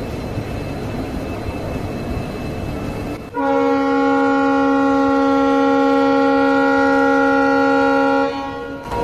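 WDP4D diesel locomotive: its EMD two-stroke V16 engine hums steadily. About three seconds in, its air horn sounds one long, steady chord of several notes for about five seconds, then cuts off, leaving the engine hum.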